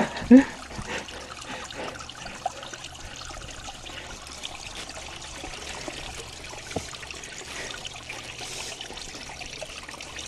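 Steady trickle of running water over wet rock, with a brief vocal sound just after the start and a faint knock or two.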